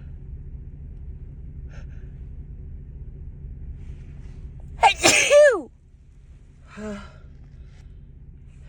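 A woman sneezes once, loudly, about five seconds in: a sharp burst followed by a voiced "choo" that drops in pitch. A short breathy sound follows about two seconds later. The sneezing comes from a head cold.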